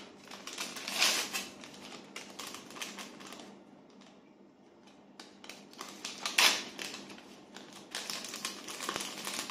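A small paper sachet of vanillin being torn open and handled, in clusters of crinkling, crackling rustles, the loudest about six seconds in.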